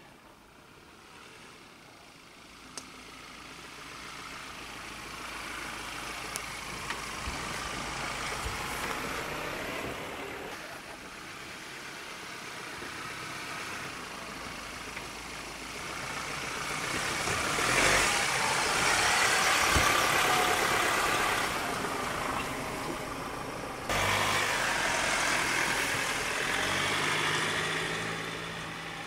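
Ford Ranger Raptor pickup's engine working at low speed as the truck crawls over dirt mounds, growing louder as it comes near and pulls past, then fading near the end.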